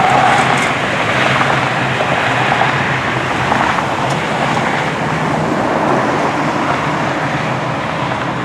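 Steady road and traffic noise: vehicles running along a highway, tyre and engine noise with no single event standing out.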